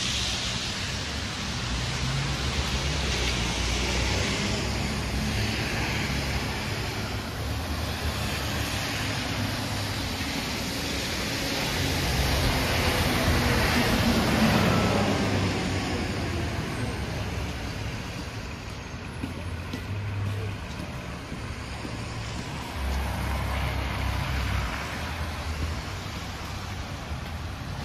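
Street traffic on wet roads: tyres hissing past, with an articulated city bus going by close about halfway through, the loudest moment.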